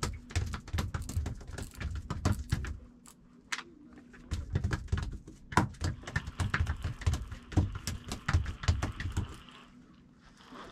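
Fishing reel being handled and wound: a string of irregular sharp clicks and light knocks over low thumps, which die away near the end.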